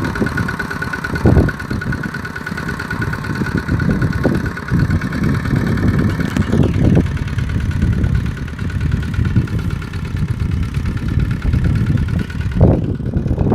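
Kubota RT-120 single-cylinder diesel engine running steadily on a tractor ploughing a rice field. A higher whine over the engine note drops away about six and a half seconds in.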